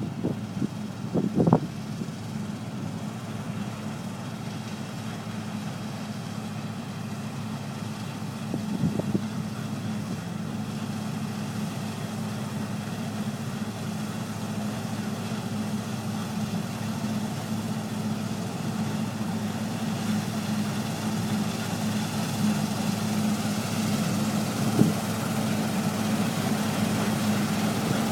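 Claas Lexion 600 combine harvester running steadily while harvesting wheat, its engine hum growing slowly louder. A few short knocks sound over it, near the start, about a third of the way in and near the end.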